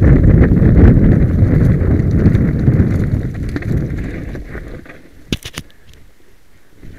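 Mountain bike descending loose rocky singletrack: tyres crunching over stones and the bike rattling, with wind on the microphone. The noise falls away about four and a half seconds in, followed by a few sharp clicks.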